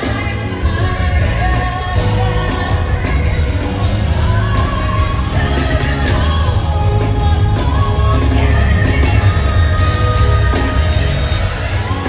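A woman's lead vocal sung live in a gospel-style ballad, with backing singers and a band with heavy bass, recorded from the audience.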